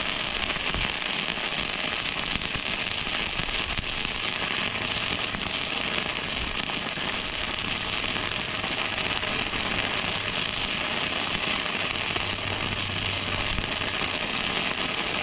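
Flux-core welding arc from a Harbor Freight Titanium 125 welder, crackling steadily as a bead is run slowly along a seam.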